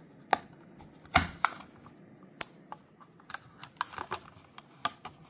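Plastic blister pack of a die-cast toy car being handled on a table and cut open with a hobby knife: scattered clicks and taps, with the loudest knock about a second in.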